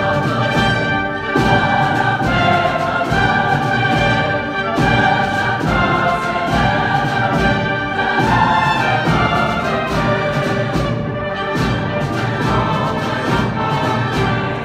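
Mixed choir and orchestra performing live, with brass and sustained choral lines over occasional sharp drum strokes.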